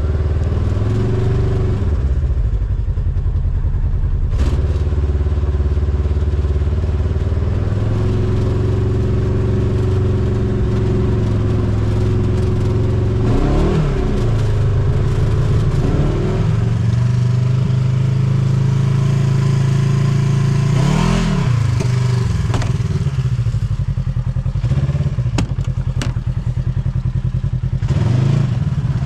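Polaris RZR 1000 side-by-side's engine running steadily, its revs rising and falling several times.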